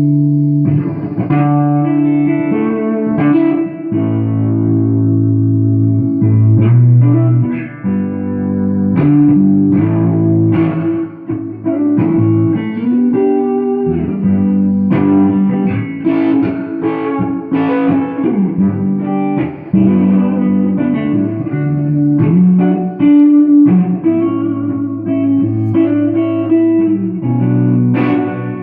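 Takamine GX-100 electric guitar with DiMarzio pickups, played through a small lunchbox-style tube amp. It plays a continuous run of picked notes and chords that ring and sustain.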